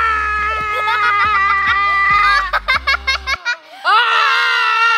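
Shrieking and laughing voices, whipped cream on their faces: a long held shriek, a quick burst of laughter about two and a half seconds in, then another shriek that falls away at the end. Background music with a steady low beat plays underneath and cuts off about three and a half seconds in.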